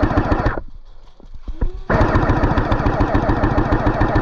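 Airsoft gun firing on full auto in rapid, continuous bursts: one burst stops about half a second in, a few single clicks follow, and a second long burst starts just under two seconds in.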